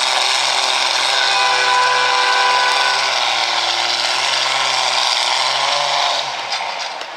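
Farmall tractor engine running hard under load as it pulls a weight-transfer sled, a loud, steady, dense mechanical noise. The sound drops off about six seconds in.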